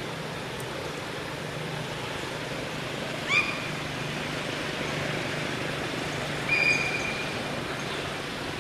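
Two short, high-pitched animal calls about three seconds apart, the first brief and rising, the second held on one pitch for about half a second, over steady outdoor background noise with a low hum.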